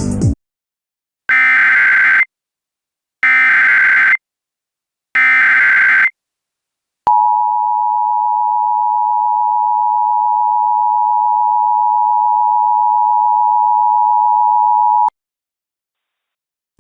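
Emergency Alert System activation: three short SAME header data bursts, each about a second long with a second's gap between, then the two-tone EAS attention signal held steady for about eight seconds before cutting off sharply. It opens an Amber Alert broadcast.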